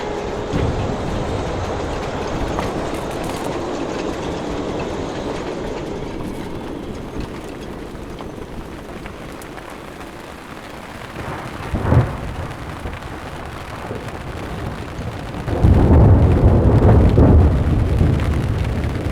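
Stormy weather: a steady rush of wind and water, with a sudden loud crack about twelve seconds in and a heavy low rumble near the end.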